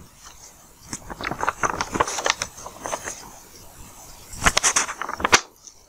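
Scattered soft clicks and rustles, bunched about two seconds in and again near the end, with no speech.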